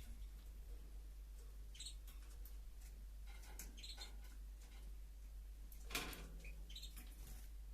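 Caged goldfinch giving a few short, faint high chirps, with one sharp click about six seconds in, over a low steady hum.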